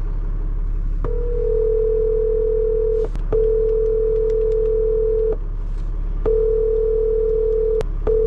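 Telephone ringback tone of an outgoing call ringing unanswered: a steady tone in long rings of about two seconds with short breaks, starting about a second in, over a low steady hum.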